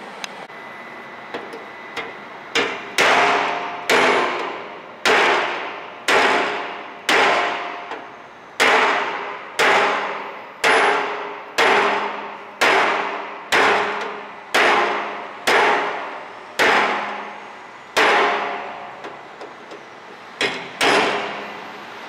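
A hammer striking a chisel set against the bung fitting of a steel oil drum's lid, cutting the fitting out. A couple of light taps, then about seventeen hard blows roughly one a second, each ringing out through the drum.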